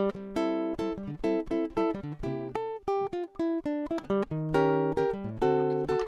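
Background music: an acoustic guitar picking a quick run of plucked notes and chords, each note ringing briefly and fading.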